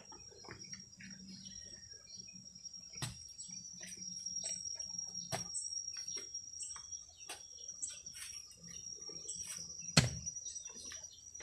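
Insects chirring steadily at a high pitch, with a few sharp knocks as an iron rod is handled. The loudest knock comes near the end.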